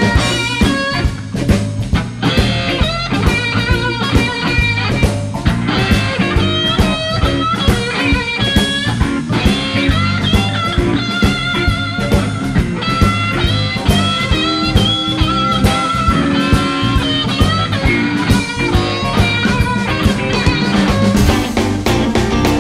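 Blues band playing an instrumental passage with no singing: a lead guitar bends notes over a steady drum beat and bass.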